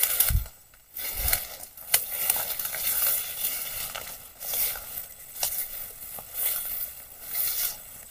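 Footsteps crunching through dry leaf litter and undergrowth on a forest floor, an irregular crackle roughly every half second at a walking pace.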